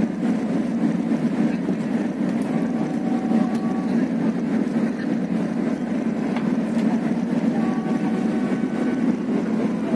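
Steady low drone of a passenger ship's engines with rushing wind and water, heard from the open deck while under way.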